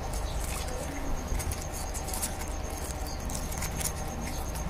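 Faint rustling and small clicks from a motorcycle handlebar switch assembly and its wires being handled, over a steady low hum.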